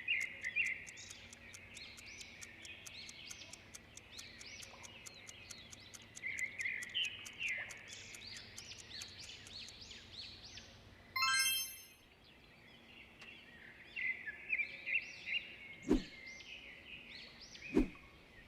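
Many small birds chirping, with fast, even ticking at about four ticks a second for the first ten seconds. A short bright chime sounds about eleven seconds in, and there are two sharp clicks near the end.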